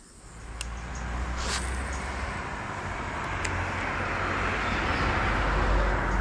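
Road traffic noise: a steady low rumble with hiss that swells gradually, like a vehicle approaching.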